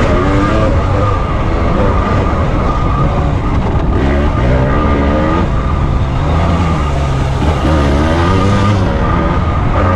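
Two-stroke dirt bike engine being ridden hard, its revs rising and falling again and again as the throttle is worked.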